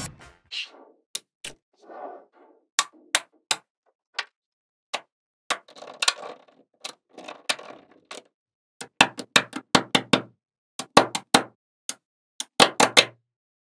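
Small neodymium magnet balls clicking sharply together as they snap into place one by one. The clicks come irregularly, with quick runs of several clicks near the end, and softer rolling and rustling of the balls between them.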